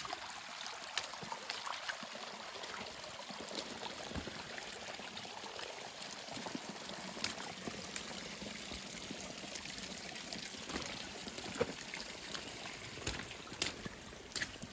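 Rainwater running and trickling down a rocky trail bed as a steady wash of water, with scattered sharp taps at irregular moments.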